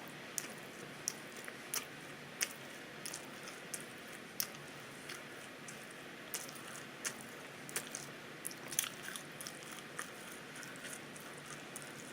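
A person chewing crunchy burnt pizza with an open mouth: a run of sharp, irregular crunches and mouth smacks, about one or two a second.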